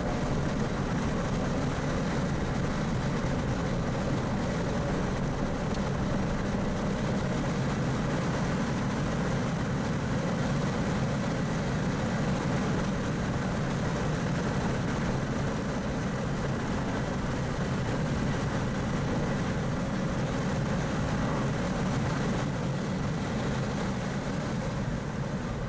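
Mazda RX-8's twin-rotor rotary engine running at speed, heard from inside the cabin together with steady road and wind noise. The level eases slightly in the last few seconds.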